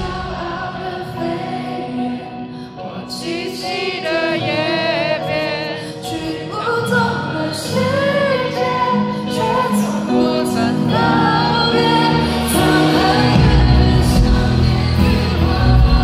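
A woman singing a Mandarin pop ballad live with band accompaniment over a concert sound system, her held notes wavering with vibrato. The deep bass drops away near the start and comes back in about ten seconds in, growing fuller toward the end.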